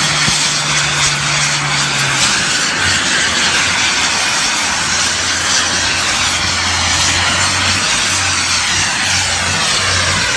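Aircraft engine noise from a display flight, loud and continuous, with a slowly wavering whoosh as the aircraft moves through the sky.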